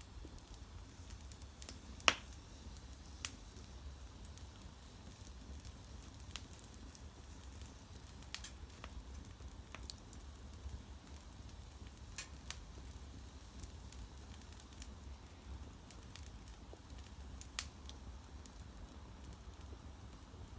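Wood bonfire crackling: scattered sharp pops and snaps every second or so, the loudest about two seconds in, over a low steady rumble.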